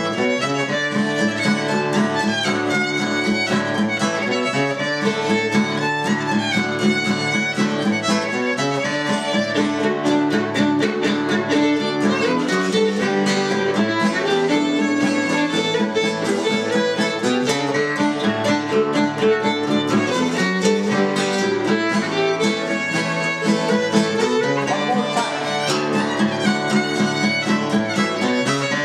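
Fiddle playing a lively tune with an acoustic guitar strumming a steady rhythm accompaniment, played without a break.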